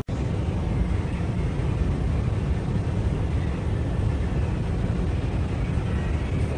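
Steady low rumble of a Guangzhou Metro Line 22 train, heard from inside the carriage as it runs into its terminal station.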